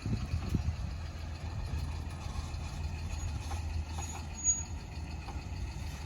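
A vehicle engine running nearby, a steady low rumble.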